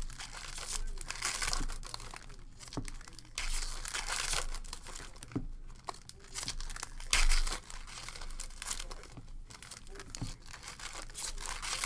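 Foil wrappers of Upper Deck SP Authentic hockey card packs being torn open and crinkled by hand, in repeated bursts. The loudest tear comes about seven seconds in.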